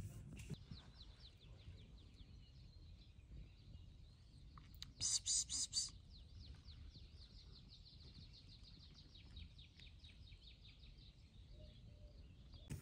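Faint bird song: a long, rapid trill of short down-slurred high notes, several a second, with a louder burst of four harsh high chirps about five seconds in, over a low steady background hum of outdoor noise.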